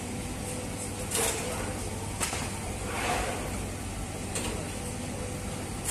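Automated sangak bread machinery running: a steady mechanical hum, with a short swish or clack about once a second as the dough feeder lays sheets of dough onto the rotating pebble oven.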